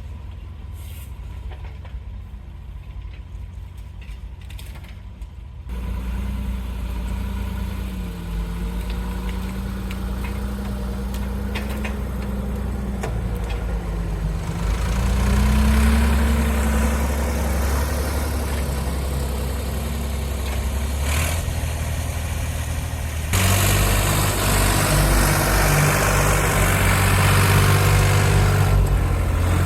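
Doosan DX35z mini excavator's diesel engine running, first at a low idle, then throttled up about six seconds in. Its pitch rises and falls as it works, and it gets louder again about two-thirds of the way through.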